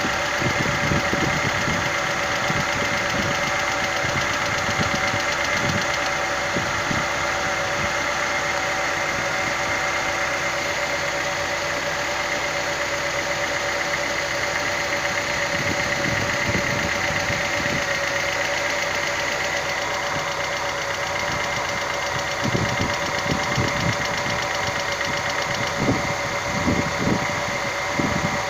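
Car engine idling with a fast, even ticking clatter from the top end: hydraulic lifters (valve lash adjusters) knocking. A few dull low bumps come near the end.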